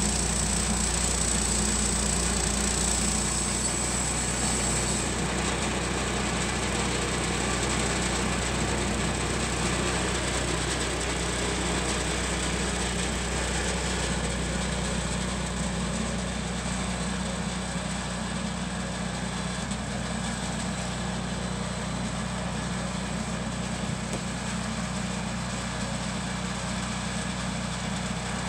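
Wood-Mizer LT10 band sawmill's engine running steadily as the saw head is pushed along a Douglas-fir log. A high hiss drops away about five seconds in, and the sound grows slightly quieter as the head moves off down the log.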